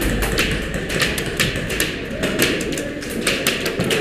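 Airsoft guns firing: a run of sharp, irregular taps and clicks, several a second.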